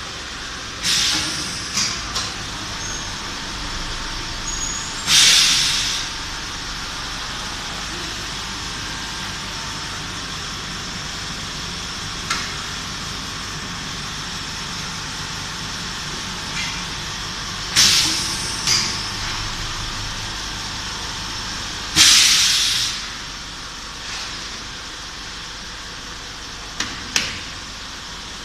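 High-frequency PVC/TPU welding machine running with a steady hum, broken by several sharp bursts of compressed-air hiss as its pneumatic press cylinder drives the welding head down and up. The loudest bursts come about five seconds in and again about twenty-two seconds in, with a few short clicks between.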